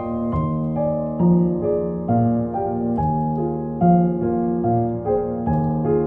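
Piano music: a steady run of ringing notes, a new one about two to three times a second.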